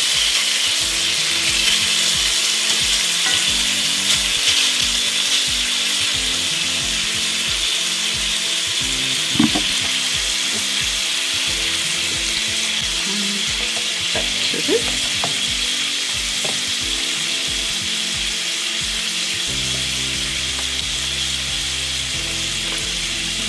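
Diced bacon sizzling steadily in a frying pan. A couple of light knocks sound over it, one near the middle and another a few seconds later.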